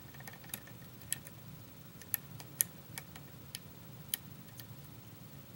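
Light, irregular metallic clicks, about ten of them, from a lock pick working the pins of a pin-tumbler lock cylinder as picking starts again after a reset.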